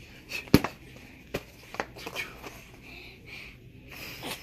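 A few sharp knocks of padded boxing gloves striking in play, the loudest about half a second in and a softer one near the end.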